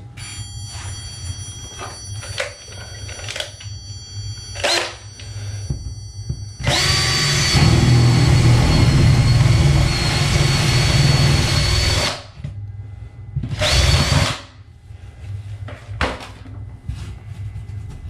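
Power drill boring a hole through garage drywall. The drill runs steadily with a high whine for about five seconds, then spins again briefly a moment later. A few light knocks of handling come before it.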